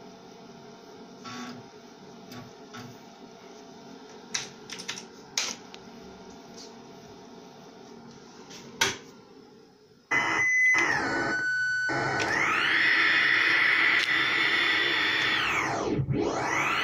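A low room hum with a few faint clicks, then, about ten seconds in, a loud burst of data audio from a 45 rpm vinyl record carrying a DOS boot-disk image. It starts with a steady tone that steps down in pitch, then becomes a dense, buzzing, chirping signal. Near the end its pitch dips sharply and swings back up.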